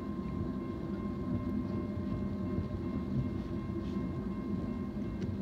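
Train rumbling past out of sight, a steady low rumble with a faint thin high whine held over it that fades out near the end.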